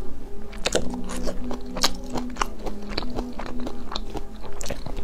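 Close-miked biting and chewing of a soft oat-topped bread roll, with a dozen or so irregular sharp crunchy clicks from the topping as the teeth go through it.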